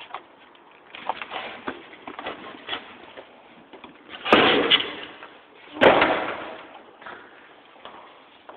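A door banged shut twice, about a second and a half apart, each bang ringing briefly through the empty building, with scattered small knocks between.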